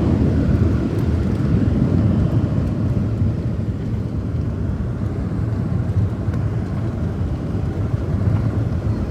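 Boeing 737-700 cabin noise while the airliner rolls on the ground after landing: a steady low rumble of engines and wheels, easing slightly a few seconds in.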